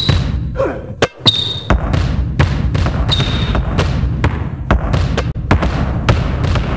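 Basketball dribbled on an asphalt court in a steady rhythm, about three bounces a second, over a backing beat. A few short high squeaks come in the first half.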